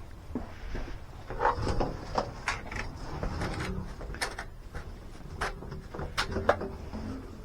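Scattered knocks, clicks and clatter of things being handled and set down, about a dozen sharp strokes over a low background rumble.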